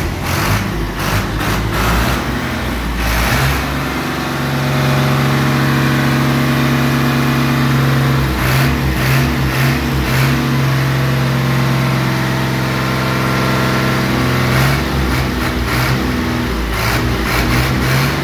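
New Holland Ghazi tractor's diesel engine running, revved up about four seconds in and held at a steady high speed for about ten seconds, then revving unevenly near the end.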